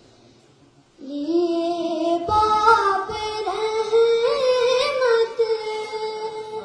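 A boy singing a naat (Urdu devotional poem): after a short pause he comes in about a second in with one long melodic line of held, bending notes, with quick ornaments in the middle.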